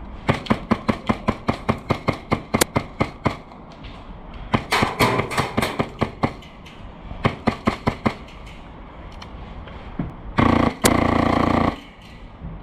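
Airsoft gunfire: runs of rapid sharp shots at about six a second, in three strings over the first eight seconds, then a sustained full-auto burst of a little over a second near the end.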